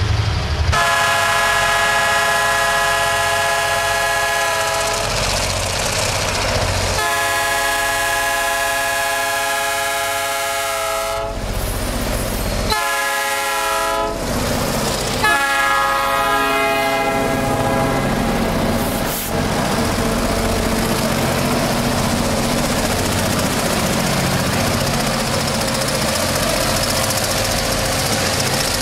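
Diesel freight locomotive's multi-chime air horn sounding several blasts, the first two long, then a shorter one and another long one, as the train nears a level crossing. After that the locomotive and its wagons run past with a steady rumble of engine and wheels on the rails.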